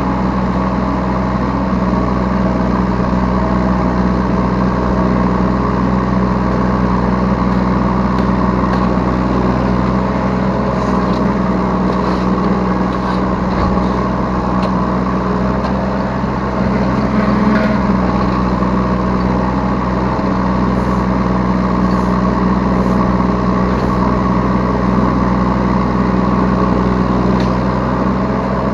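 Yanmar B3 Sigma 3-ton mini excavator's diesel engine running steadily, heard up close from the operator's seat, briefly louder about seventeen seconds in.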